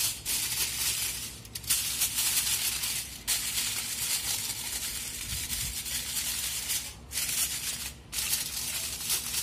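Aluminium foil crinkling and crackling as it is pressed and crimped around the rim of a round pudding mold, broken by a few short pauses.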